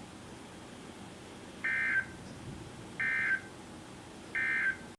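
NOAA Weather Radio EAS end-of-message signal: three short bursts of SAME digital data tones, about a third of a second each and spaced about 1.3 seconds apart, marking the end of a severe thunderstorm warning broadcast.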